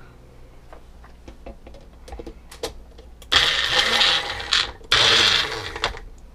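Magic Bullet personal blender pulsed twice, about a second each, chopping cauliflower pieces, its motor winding down in pitch after each pulse. Before that come clicks and knocks as the cup is handled and set on the base.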